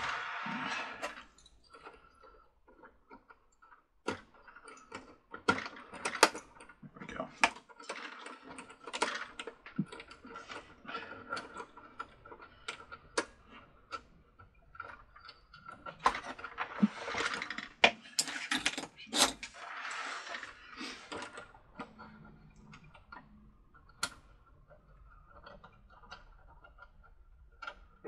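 Hands fitting small parts at the hub of a Mr. Christmas carousel's rotor assembly: irregular clicks, clinks and rustles of plastic and metal pieces and wires being handled, busiest in the first second and between about 16 and 21 seconds in.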